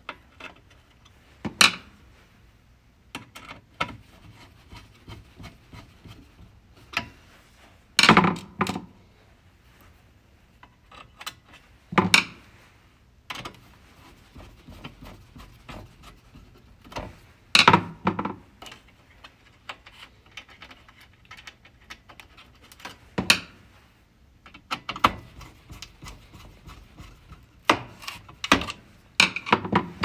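Handling noises from reinstalling a microwave's control circuit board: irregular clicks, knocks and scraping of the board, its sheet-metal bracket and a screwdriver, with several sharper knocks a few seconds apart.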